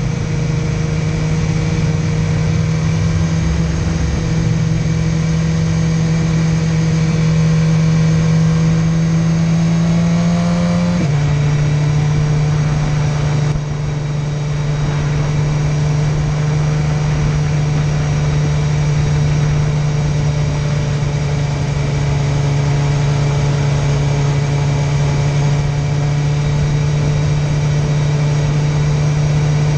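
Motorcycle engine running at a steady cruising speed, with wind and road noise. The engine note creeps up slightly, then steps down in pitch once, about eleven seconds in, and holds steady after that.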